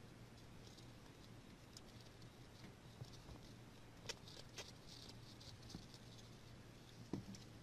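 Near silence with a low steady hum and faint scattered crackles and ticks, the clearest two about four seconds in and one sharper tick just after seven seconds.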